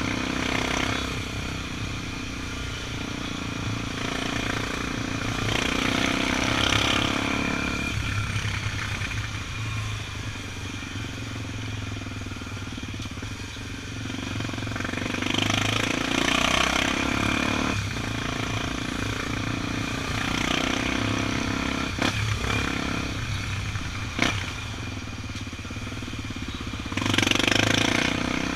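Honda XR 250 Tornado's single-cylinder four-stroke engine running under way, its pitch and loudness shifting with the throttle, with several swells of louder noise and two sharp clicks about two-thirds of the way in.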